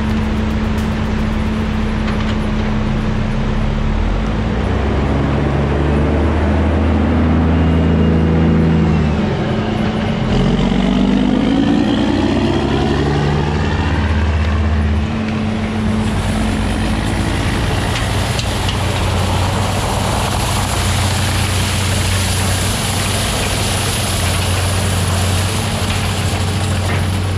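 Loaded log truck's diesel engine pulling away, its pitch falling and then rising again about ten seconds in, over the steady drone of Tigercat knuckleboom log loaders' diesel engines.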